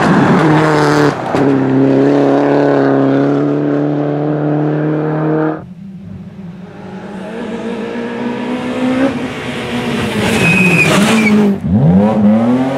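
Rally car engines at high revs. First a Citroën DS3 rally car holds steady high revs through a bend until the sound cuts off suddenly about five and a half seconds in. Then another rally car approaches, growing louder, with a brief high squeal; near the end its revs fall and then climb sharply as it accelerates.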